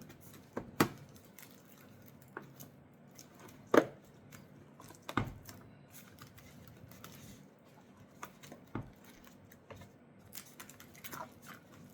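Hard plastic taillight parts being handled and fitted together: scattered sharp clicks and knocks with light rustling between them, the loudest about four seconds in.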